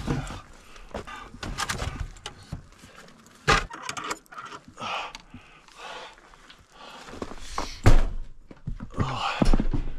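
Knocks and thunks of a cabin door being worked open and shut, with clatter and rustling of someone moving about in a small room. A louder thump comes near eight seconds in.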